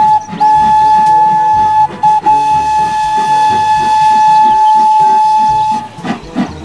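Steam whistle of a full-size Thomas the Tank Engine locomotive blowing one long, steady note, broken by a couple of brief gaps and stopping near the end.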